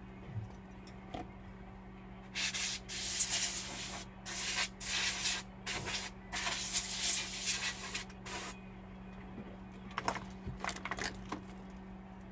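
A series of about seven short hissing bursts in the first half, made by hand work on the laptop, then a scatter of light clicks near the end, over a steady low hum.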